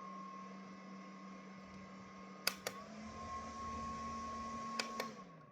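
Small electric fan built into a makeup light running with a steady hum and whine. Two clicks of its switch come about two and a half seconds in, after which it runs slightly faster. Two more clicks follow near the end, and the fan winds down and stops.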